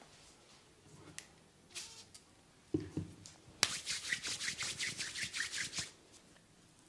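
Hands rubbing rapidly over hair and skin in a massage, about six brisk strokes a second for two seconds, after a low thump and a single faint click.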